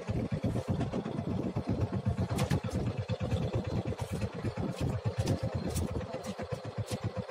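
Fishing boat's engine running steadily, with a few sharp clicks over it.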